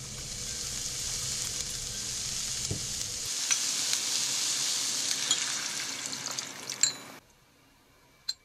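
Vegetables sizzling as they stir-fry in a frying pan, a steady hiss with a few light taps. The sizzle cuts off abruptly about seven seconds in, followed by a faint click.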